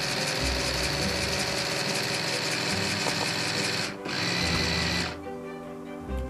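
Small battery-powered Meccano electric motor and gear train whirring as it drives the robotic arm and gripper. It cuts out briefly about four seconds in, then stops about a second later, leaving background music.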